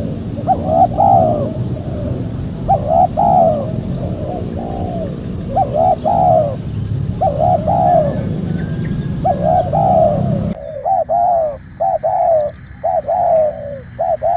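Spotted dove (tekukur) cooing over and over in short phrases of a few notes, every one to two seconds. About two-thirds of the way in, a low background rumble cuts off and a faint steady high whine comes in under the cooing.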